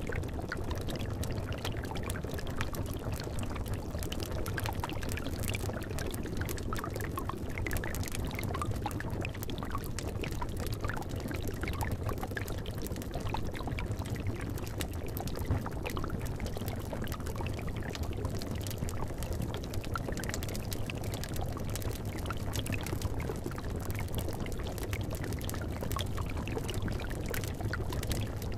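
Cauldron of liquid bubbling steadily over a low rumble, mixed with the scattered crackle of a wood fire.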